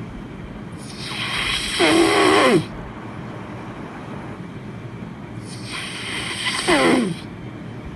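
A person snoring heavily: two loud snores about five seconds apart. Each is a swelling rasp that ends in a falling, groaning tone.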